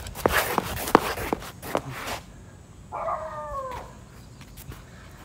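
Footsteps and rustling on a paved path for the first two seconds, then one drawn-out, slightly falling whine from a dog about three seconds in.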